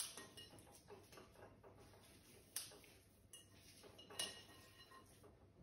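A spoon clinking and scraping faintly against a glass mixing bowl as sausage meat is stirred, with a few sharper clinks at the start, about two and a half seconds in and about four seconds in.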